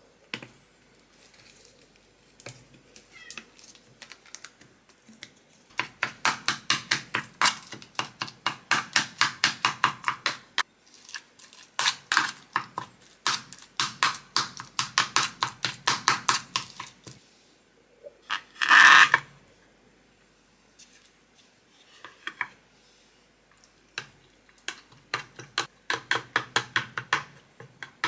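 Utensil tapping against a bowl as cat food is mashed and mixed, in runs of rapid strokes about five or six a second lasting several seconds each, with a louder rasping burst about two-thirds of the way through.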